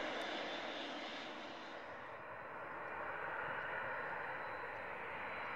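Airbus A321's CFM56 jet engines running at low power as the airliner taxis, a steady rushing hiss. About two seconds in, the highest part of the hiss drops away.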